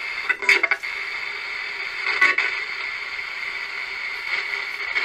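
Steady static hiss with a few brief crackles: one about half a second in, one just under a second in, one a little after two seconds.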